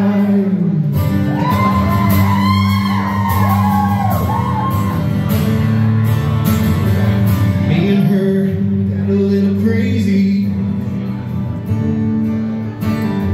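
Acoustic guitar strumming an instrumental break of a live country song through a venue PA, after the singer holds a last sung word. Audience whoops and shouts rise over the guitar from about one to five seconds in.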